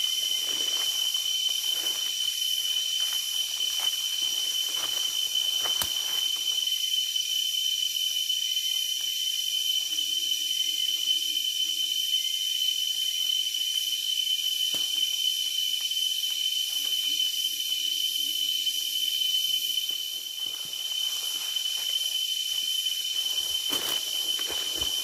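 Insects droning in one unbroken, steady high-pitched tone, with footsteps rustling through dry leaf litter now and then, most around the start and near the end.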